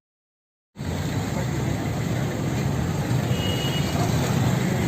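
After a moment of dead silence, steady road traffic noise: vehicle engines running with a low hum, and a brief faint high tone about three and a half seconds in.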